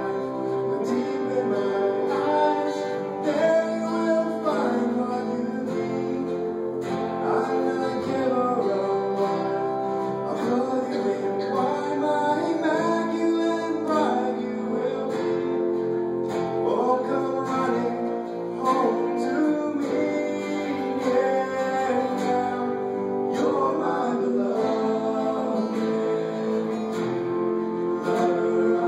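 Several men singing together with an acoustic guitar accompaniment, a song performed live without a pause.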